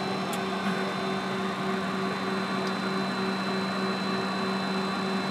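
Steady hum and hiss on the flight deck of a McDonnell Douglas KC-10A Extender on the ground, several constant tones over an even rush of noise.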